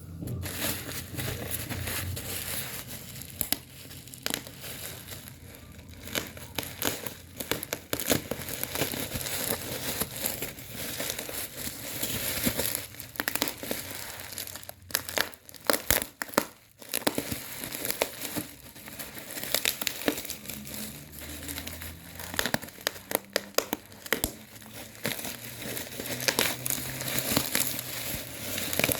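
Packaging crinkling as it is handled, with a continuous run of irregular sharp crackles and clicks.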